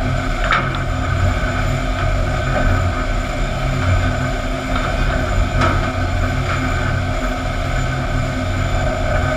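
Sawmill board-handling line running steadily: a loud, continuous mechanical rumble and hum from the conveyors and drives, with a couple of sharp clacks of boards knocking, about half a second in and again past the middle.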